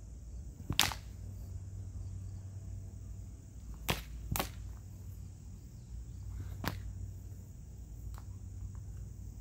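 Sabre blades striking each other in sparring: sharp clacks, the loudest about a second in, two close together around four seconds in, another near seven seconds and a faint one near eight.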